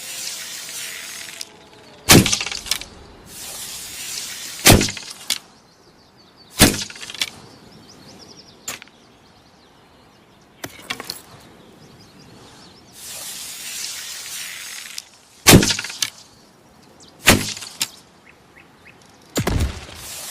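Bow-and-arrow sound effects: hissing whooshes of arrows in flight and six sharp impacts of arrows striking, spaced a few seconds apart.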